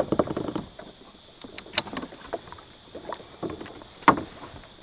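Sharp knocks and clicks on a plastic kayak hull as a kayak cart is worked down through the scupper holes: a quick rattle at the start, then scattered single knocks, two louder ones about two and four seconds in.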